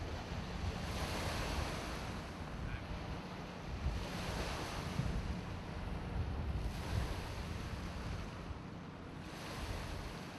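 River Thames water washing onto the shore in waves, the wash swelling every two to three seconds, with wind rumbling on the microphone.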